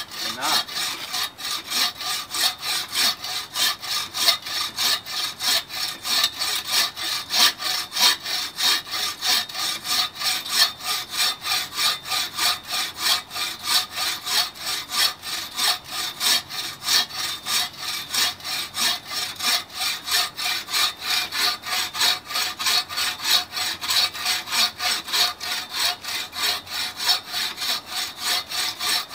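TrailBlazer 24-inch takedown buck saw cutting through a 10-inch log, its blade rasping through the wood in steady back-and-forth strokes, about three a second.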